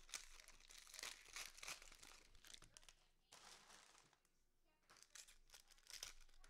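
Faint crinkling and tearing of a trading card pack's cellophane and foil wrapper being handled and opened. It goes quiet for about a second and a half in the middle, then the crinkling resumes.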